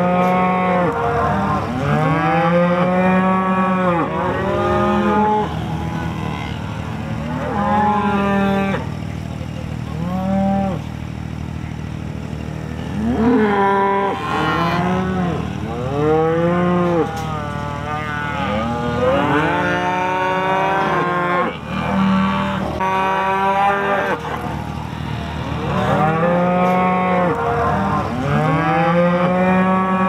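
Cattle mooing: many long calls, one after another and often overlapping. These are cows and calves bawling after the calves have been separated from their mothers.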